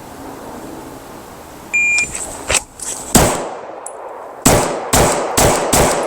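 A shot timer beeps once, then pistol shots: one a little over a second after the beep, then four fast shots about half a second apart near the end.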